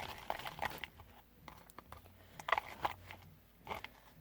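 Slime being mixed with activator: scattered short sticky clicks and squelches, busiest in the first second, then only a few isolated ticks.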